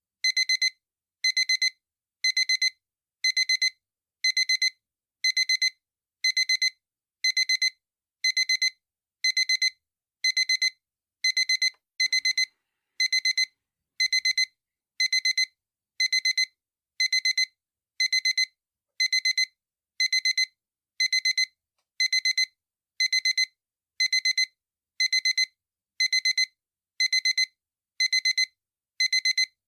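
Digital alarm clock beeping: a high-pitched double beep repeating about once a second, with no change in pattern or level.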